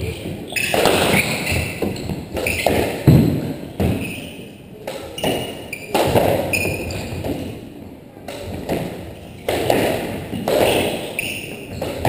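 Doubles squash rally: the ball is struck by racquets and smacks off the walls every half second to a second, each hit ringing around the enclosed court. Short sneaker squeaks on the hardwood floor come in between the hits.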